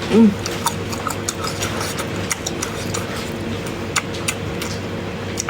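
Close-up chewing of lamb meat and lamb tripe: many short, wet mouth clicks over a steady background hum, with a brief hummed "mm" right at the start.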